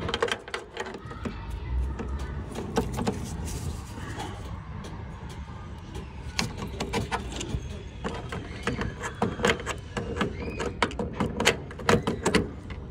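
Scattered clicks and knocks of hand tools on metal: an adjustable wrench mounted on a digital torque wrench being fitted to and turned on the quarter-inch flare nut of a mini-split service valve.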